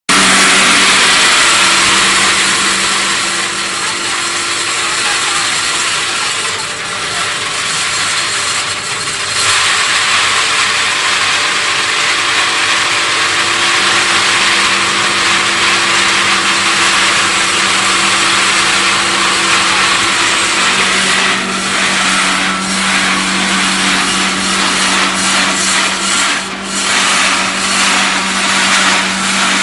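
Feed crushing and mixing machine running steadily, crushing feed: a loud, even grinding noise with a steady low hum underneath.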